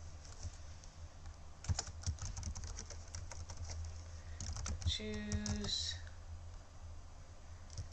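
Computer keyboard typing: runs of keystrokes as a word is typed into a text field, with a burst about two seconds in and more around five seconds and near the end. A brief steady tone sounds about five seconds in, over a low constant hum.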